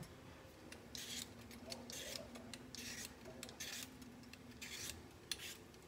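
Vegetable peeler scraping the skin off a raw potato in short, repeated strokes, about two a second.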